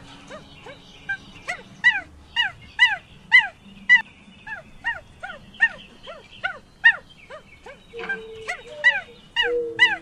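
An animal's rapid series of short, high calls, each rising and then falling in pitch, about two to three a second.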